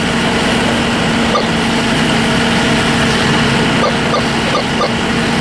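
Fire apparatus diesel engines running steadily, with a constant hum under an even rushing noise, as engines do while working the pump and aerial ladder at a fire.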